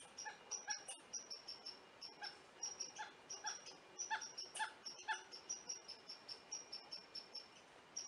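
Red squirrel scolding an intruder: a steady run of short high chirps, several a second, with louder, lower, harsher chucking calls coming in the middle.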